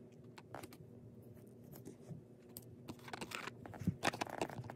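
Light scattered clicks and rustling of small toys and props being handled, with a busier cluster of clicks and rustles about three seconds in.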